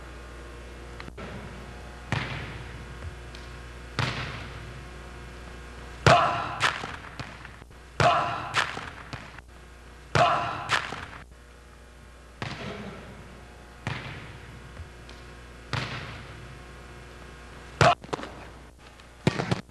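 A ball thudding on a hard gymnasium floor over and over, about every two seconds and sometimes twice in quick succession, each hit echoing through the hall.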